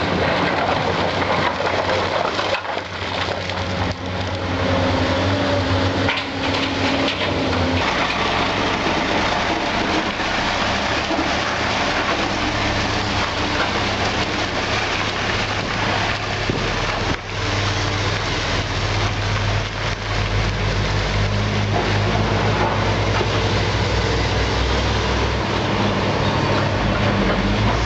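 Diesel engines of a tracked excavator and a tipper truck running, with concrete rubble crunching and clattering as it is loaded.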